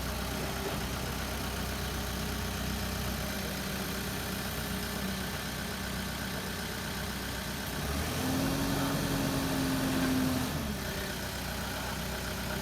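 Case 770FX backhoe loader's diesel engine running steadily, then revving up for about two and a half seconds, about eight seconds in, before dropping back to its earlier speed.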